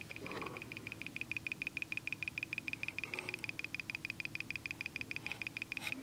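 Passive piezo speaker, with no built-in driver, pulsed by a 555 timer and making fast, evenly spaced clicks at a high pitch. It sounds as an on-off clicking rather than a steady beep, because the square wave is still too slow with the 33 µF timing capacitor.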